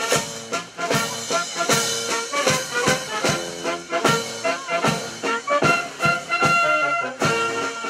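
Brass band music, trumpets and trombones over a steady quick drum beat.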